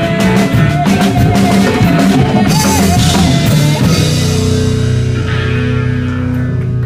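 Rock band playing live, with drums and electric guitar under a held high melody line. A cymbal crash comes about two and a half seconds in, and about four seconds in the drums drop out, leaving sustained guitar and bass chords ringing: the song's closing chord.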